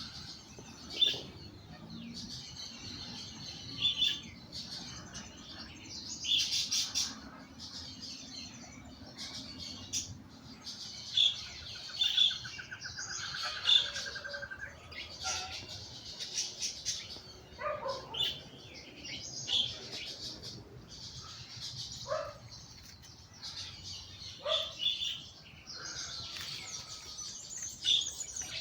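Several birds chirping and calling, with many short high chirps throughout, a rapid trill about halfway through, and a few lower falling calls in the later part.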